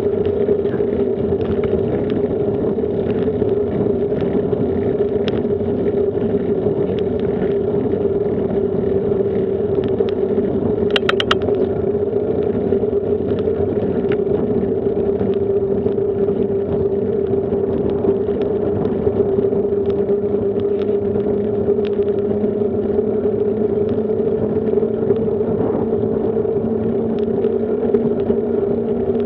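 Steady rolling noise of a bicycle riding on asphalt, with a constant hum underneath. A few quick clicks come about eleven seconds in.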